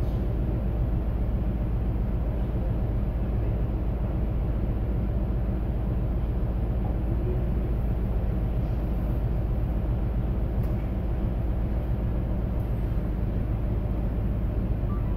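Steady low rumble and hum of a container ship underway, heard inside its enclosed bridge: the drone of the ship's engine and machinery.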